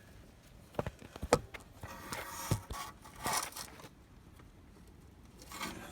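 Handling noise: a few sharp clicks and knocks with short rustling scrapes in between, and no engine running.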